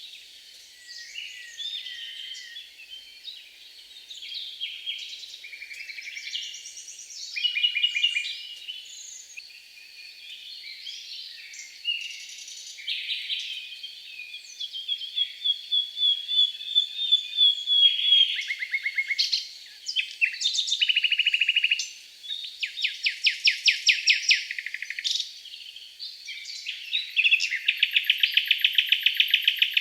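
Several songbirds singing together, with chirps, fast trills and rapid runs of repeated notes. The loudest trills come in the middle and near the end.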